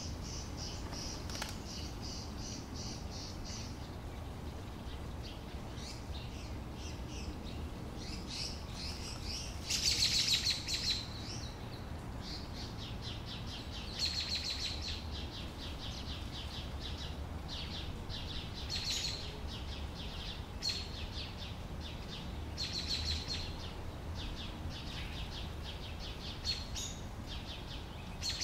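Small birds chirping in rapid runs of high notes, repeated throughout, with the loudest flurry about ten seconds in, over a steady low background rumble.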